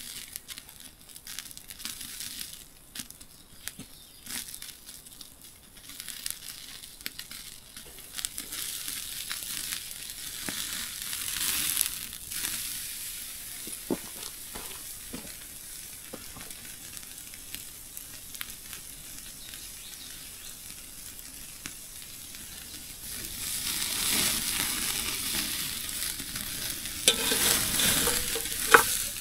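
Ribeye steak sizzling over a campfire, a steady hiss with scattered sharp pops. The sizzle swells louder twice, the second time near the end.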